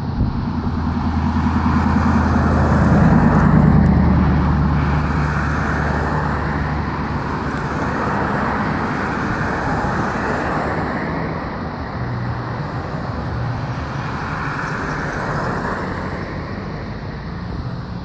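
A car passing on the street, its engine and tyres loudest about three to four seconds in and then fading into steady traffic noise.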